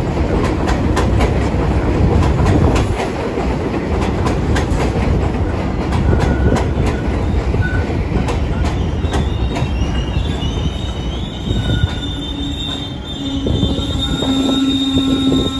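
New York City subway 6 train of R62A cars running past along the platform: a heavy rumble with repeated clicks of wheels over rail joints. From about nine seconds in, high wheel squeal rises over it, and a steady low hum joins near the end.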